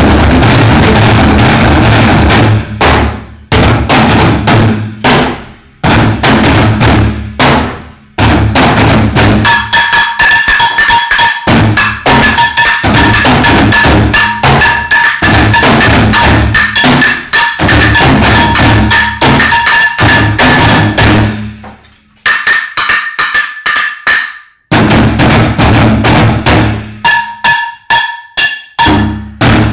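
Several drummers beating plastic barrels with drumsticks in a fast, loud, continuous rhythm, breaking off briefly a few times. A steady high ringing tone sounds over the drumming for much of the middle.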